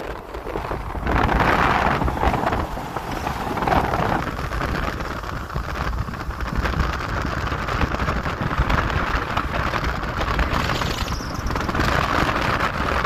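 A vehicle on the move: steady road and engine rumble with wind buffeting the microphone.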